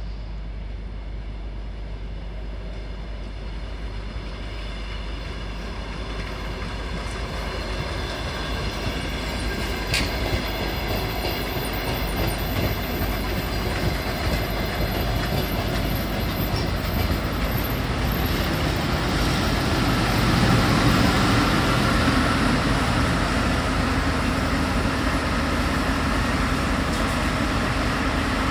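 Latvian Railways DR1A diesel multiple unit arriving: its diesel engine and wheels on the rails grow steadily louder as it approaches and rolls past. The sound is loudest about two-thirds of the way in and stays loud as the train draws into the platform.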